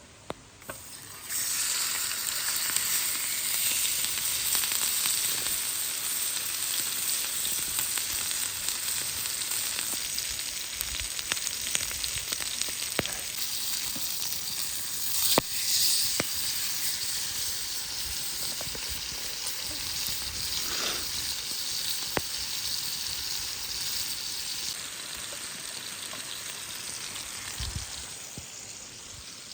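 Food sizzling and frying on a hot iron plate over a campfire. The sizzle starts suddenly about a second in as the food goes on, runs steadily with scattered small pops, and eases off near the end.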